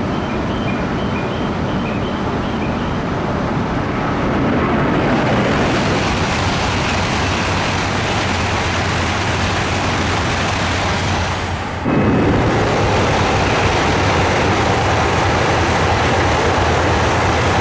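E5-series Shinkansen with E3-series Tsubasa cars coupled behind, running through a station at high speed: a steady rushing roar of air and wheels. It swells about four seconds in and jumps suddenly louder about two-thirds of the way through.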